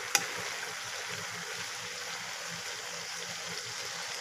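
Grated carrot halwa sizzling in ghee in a metal pot with a steady hiss, the moisture cooking off as it is fried. A single sharp clink of the spoon against the pot just after the start.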